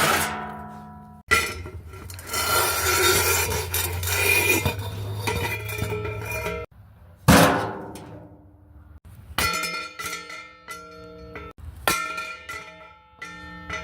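A string of separate metal sounds: a ringing metal clang dying away, then several seconds of metal scraping and rattling with a ringing tone, a single hard metal hit that rings out, and near the end a quick run of ringing metal strikes.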